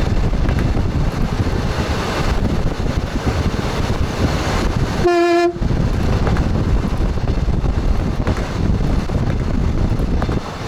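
Express train running on rails, heard from the front cab as a steady rumble of wheels and track. About halfway through, the train's horn gives one short toot of about half a second.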